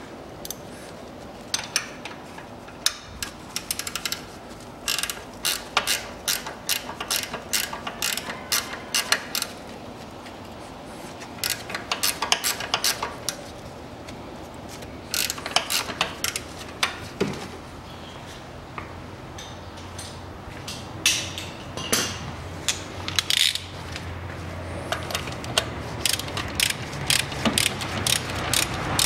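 Ratchet wrench clicking in repeated short runs, turning a bolt by the alternator while the alternator and water-pump drive belt is being fitted.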